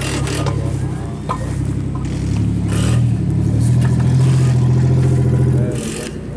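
A car engine running in the pits, revving up about two seconds in, held at higher revs, then dropping back just before the end.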